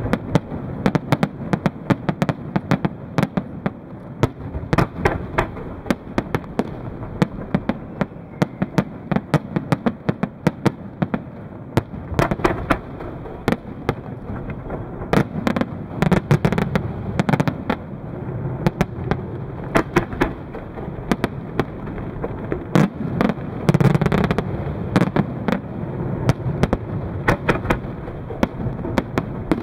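Aerial fireworks display: a dense, continuous run of sharp bangs from bursting shells, with a louder cluster about two-thirds of the way through.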